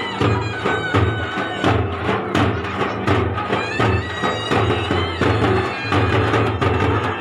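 Traditional music: a reed-pipe melody wavering up and down over a steady beat of drums, two to three strokes a second.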